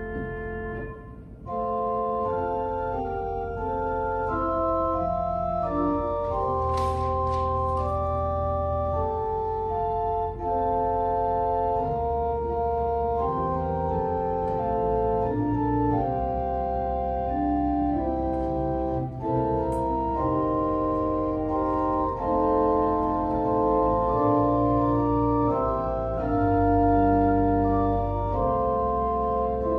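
Church organ playing a slow piece in held chords, the notes changing every second or two, with a brief break just over a second in.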